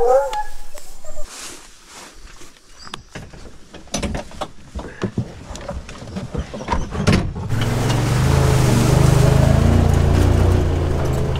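A few knocks and clicks, then from about halfway a side-by-side UTV's engine running steadily as it drives along a rough woodland track, heard from inside the cab.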